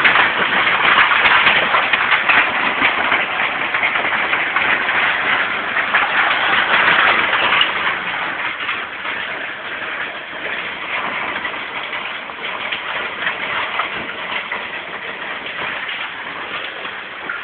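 Hail coming down hard, a dense patter of countless small impacts. It eases somewhat about eight seconds in but keeps going.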